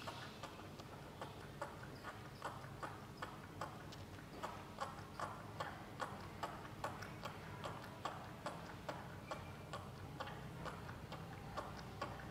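Baby macaque suckling on a feeding bottle's teat: faint, regular clicks at about two to three a second.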